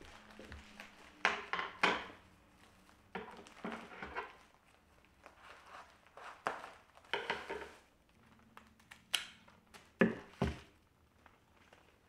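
Plastic wrapping on a bouquet of fresh flowers crinkling in several bursts as it is handled and cut open with scissors, with a few sharper clicks near the end.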